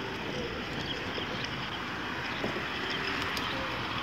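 Steady rushing noise of a bicycle ride: wind on the microphone and tyres rolling over worn asphalt, with a few faint ticks.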